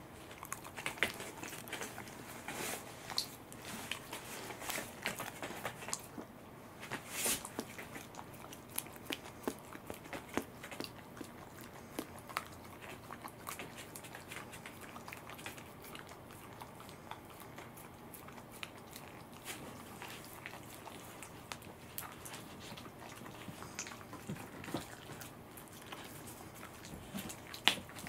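A cat and then a Welsh corgi eating raw fish from a hand: close chewing and biting, a run of small irregular clicks and smacks.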